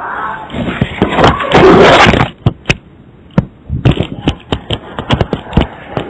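A rustling noise for about two seconds, then a run of irregular, sharp knocks and clicks.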